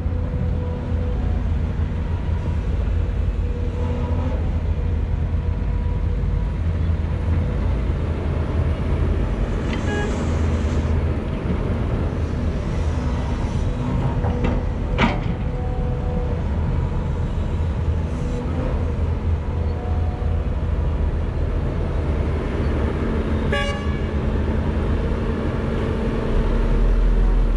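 Volvo EC210B LC excavator's diesel engine running steadily under load while the bucket digs rocky soil and the boom lifts, with several sharp knocks from the bucket on rock and rubble. The engine rumble grows louder near the end.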